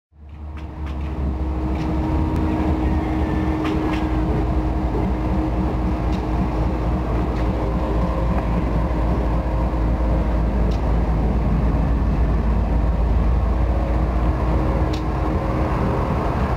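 Ferromex diesel-electric freight locomotive approaching, its engine running with a loud, steady low rumble and a steady hum.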